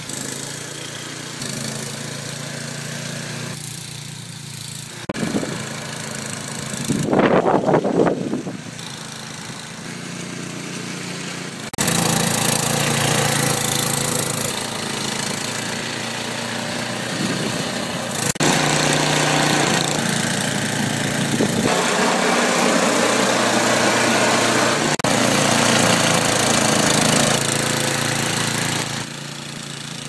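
Gas snowblower engines running while they throw snow, heard across several short clips with abrupt cuts between them. There is a brief, louder rush about eight seconds in.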